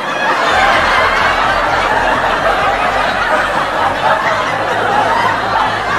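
Electric hair clippers running close to the microphone as they cut hair at the side of the head: a steady, loud buzzing.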